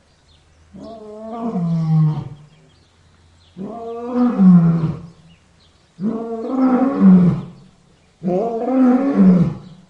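Lion roaring: four long roars of about a second and a half each, a second or so apart, each dropping in pitch as it ends.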